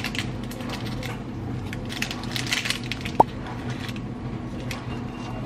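Paper tea-bag sachets being torn open and unwrapped, a run of crinkling paper rustles, with one sharp click about three seconds in.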